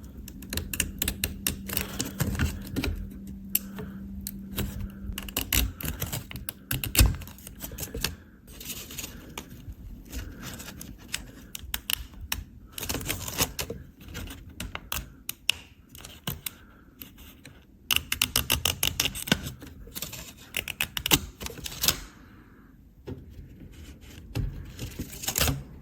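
Clicking and clattering of an IBM Model M keyboard's hard plastic and metal parts being handled during disassembly, in irregular bursts, as the ribbon connectors are worked loose ahead of lifting the circuit board. A faint steady hum runs under the first several seconds.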